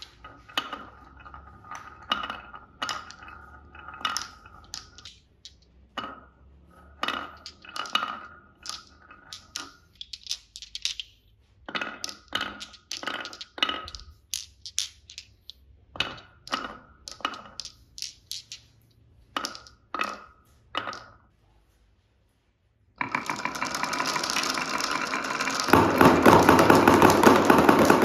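Marbles clicking and clacking as they run down a wooden marble run, irregular sharp knocks with a short ring. After a brief silence, a dense, loud rattle of many marbles running and pouring at once, louder near the end.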